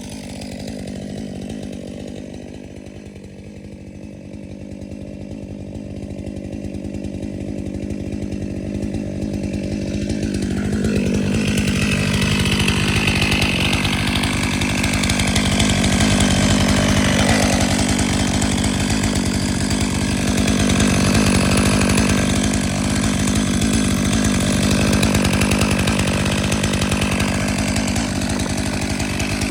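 Stihl MS 500i fuel-injected two-stroke chainsaw running, fairly quiet for the first ten seconds, then from about eleven seconds in much louder and noisier as it makes a test cut through wood.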